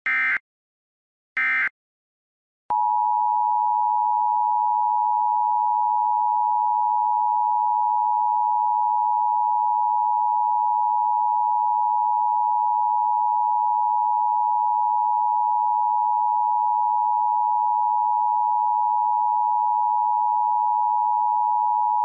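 Two short EAS SAME digital data bursts, then about three seconds in the Emergency Broadcast System Attention Signal starts: a steady two-tone alert (853 Hz and 960 Hz together) held at constant level, the signal that preceded EBS test announcements.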